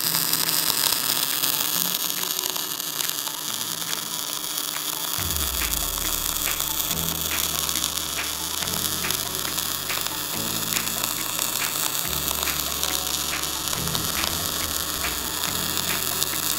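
Arc welding around a round roll-cage tube on a rotating positioner: a steady hiss and crackle of the arc without a break, with a low hum underneath that shifts in pitch now and then.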